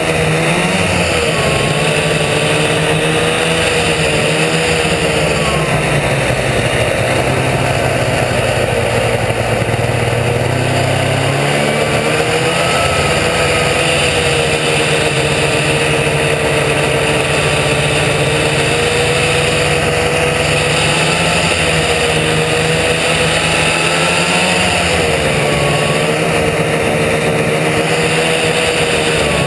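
1972 Ski-Doo T'NT 775 snowmobile's two-stroke twin-cylinder engine running loud under way, its pitch rising and falling with the throttle as the sled travels over snow.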